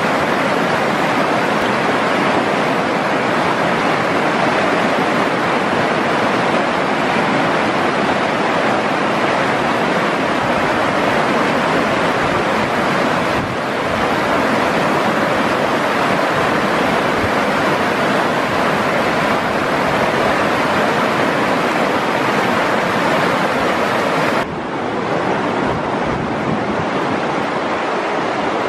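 River rapids rushing over rocks: a loud, steady roar of water. About three-quarters of the way through, the rush drops a little and turns duller.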